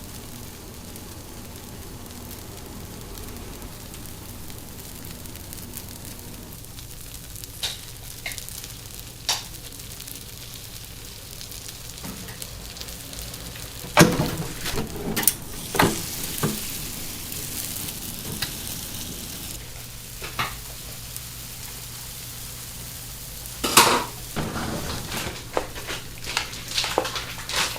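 Batter sizzling in a bungeoppang iron mould, a steady hiss, broken by sharp metal knocks and clatter in two clusters, about halfway in and near the end.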